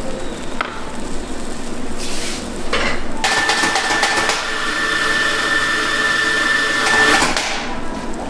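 Egg omelette roll sizzling on a flat-top griddle, with metal utensils and pans clattering. From about three seconds in, a steady mechanical whine runs for about four seconds, then stops.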